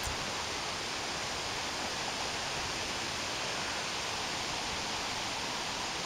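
Steady rushing outdoor background noise with no distinct calls or tones, and a brief click right at the start.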